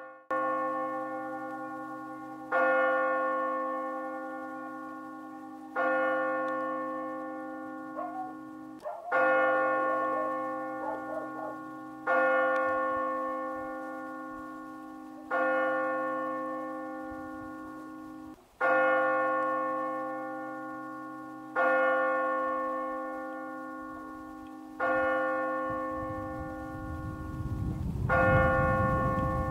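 A single church bell tolling slowly, struck about every three seconds with the same pitch each time, each stroke ringing out and fading before the next. A low rumble comes in near the end.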